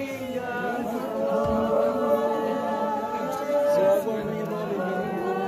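Revival Zion congregation singing together a cappella, many voices overlapping without instruments.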